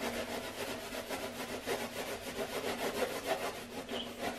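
A rubber balloon and a ping pong ball rubbed quickly back and forth on hair, a steady run of rapid scrubbing strokes, building up a static charge.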